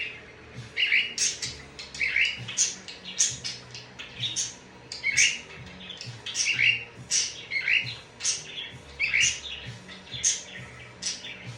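Pet parrot giving short, sharp squawking calls over and over, about two a second.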